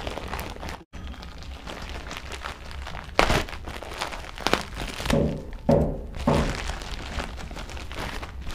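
White courier mailer being torn open by hand, crinkling and rustling as it is pulled apart, with a sharp rip a little after three seconds in.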